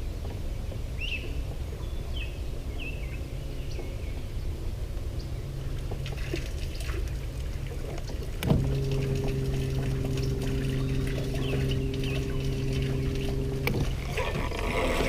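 Low wind and water noise with a few short bird chirps in the first few seconds. About eight seconds in, a bow-mounted electric trolling motor switches on with a click and hums steadily at one pitch for about five seconds, then cuts off.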